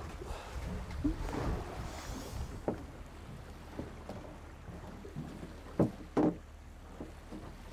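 Boat on the water: a steady low rumble under a brief wash of water about a second in. Scattered wooden-sounding knocks from the boat follow, the loudest two close together about six seconds in.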